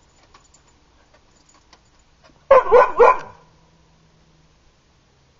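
Dog barking: a quick run of three loud barks about halfway through, each dropping in pitch.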